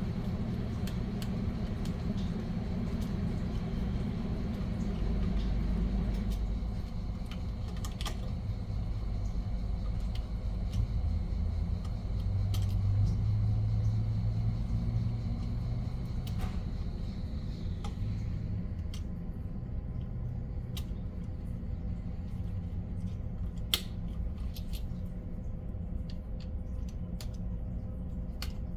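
Steady low hum of running machinery, with several steady tones in it, and a few sharp clicks as outlet wires and tools are handled.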